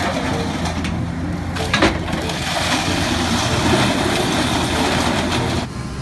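Hydraulic crawler excavator with a scrap grapple working a pile of scrap metal: the diesel engine runs steadily under a clatter and crunch of metal. There is one sharp crash about two seconds in, and the sound drops quieter just before the end.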